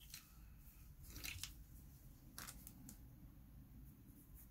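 Faint scratching of a pastel pencil on paper in a few short strokes, with light clicks.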